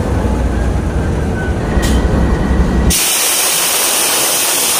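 Diesel locomotive's engine rumbling at a standstill, then about three seconds in a loud, steady hiss of compressed air being released from the locomotive that covers the engine sound.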